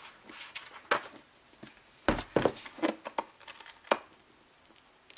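Hands handling a cardboard Blu-ray box set, pulling a glued-on piece off its back. A few sharp knocks and taps, the loudest a cluster about two seconds in.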